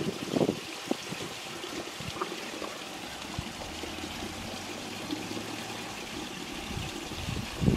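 Steady rushing of running water, like a nearby stream, with brief low rumbles just after the start and again near the end.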